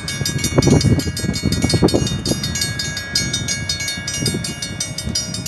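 Mechanical railroad crossing bells ringing in rapid, even strokes, with a low rumble underneath that is strongest in the first couple of seconds.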